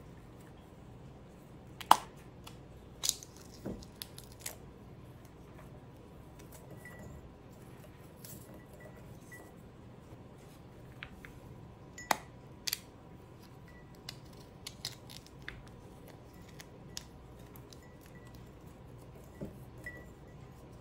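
King Tut purple pea pods being split open and shelled by hand, giving scattered crisp snaps and clicks, with peas dropping into a small glass jar; a few of the clicks are much sharper than the rest.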